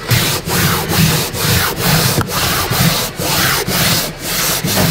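A hand rubbing and pressing down a sheet of EVA foam traction turf on a jet ski deck, in repeated rubbing strokes about two a second, smoothing the self-adhesive sheet flat.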